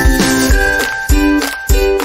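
Background music: an upbeat tune with pitched notes over a steady beat, about two beats a second.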